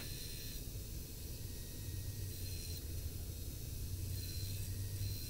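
Belt grinder running with a steady low hum and hiss as a steel sword guard is ground against the belt. A faint high whine comes and goes several times.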